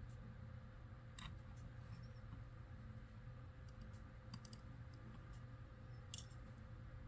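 Faint clicks and taps of small plastic Lego pieces being handled and fitted together, a few scattered clicks with a small cluster midway, over a steady low hum.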